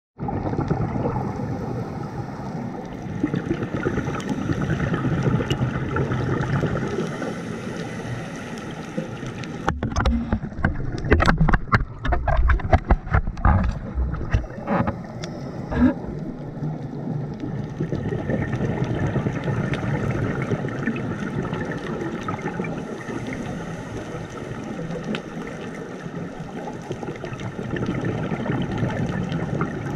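Underwater sound through a camera housing: a scuba diver's regulator breathing and exhaled bubbles rushing and gurgling, swelling and fading in slow waves. A burst of crackling bubble pops starts about ten seconds in and lasts several seconds.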